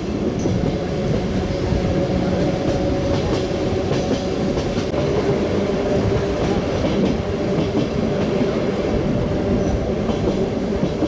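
The Train Jaune, a metre-gauge electric mountain train, running along the line: a steady rumble of wheels on rail with a constant hum over it and a few light clicks from the track.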